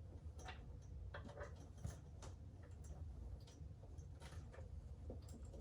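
Faint, irregular light clicks and taps from handling and stringing up the prop's wiring, over a low steady hum.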